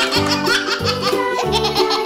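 Children's background music with a steady, bouncing bass beat, with a baby's giggling mixed in over it.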